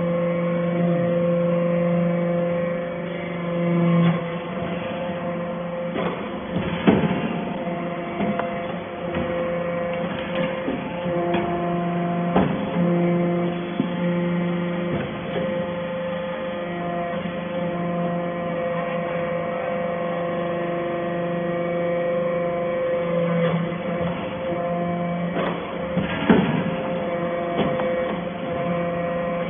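SBJ-630 hydraulic chip baler running, its pump and motor giving a steady hum whose strength shifts slightly as the press cycles. A sharp clunk comes about seven seconds in and another near the end.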